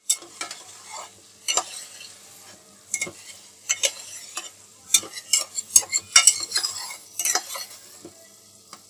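Metal spatula scraping and clinking against a metal frying pan as sauce-glazed chicken drumsticks are stirred, in irregular strokes that come thicker in the second half. A faint sizzle of the sauce cooking down runs underneath.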